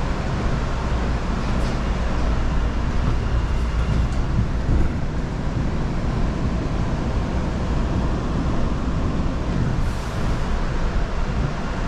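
Steady rumble of an MBTA Orange Line subway car running along the track, heard from inside the car, with a few faint clicks between about two and five seconds in.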